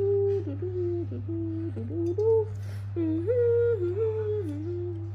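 A woman humming a slow tune with closed lips, holding notes and stepping between them, with a short pause about three seconds in.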